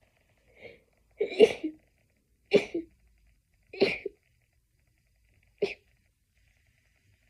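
A person's stifled sneezing fit: a faint short sound, then four short held-in sneezes a little over a second apart, the last after a longer pause. The first two are the loudest.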